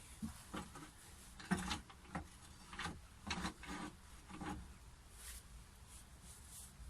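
Wood lathe tool rest being handled and adjusted: a string of irregular knocks and scrapes, metal and wood rubbing and bumping.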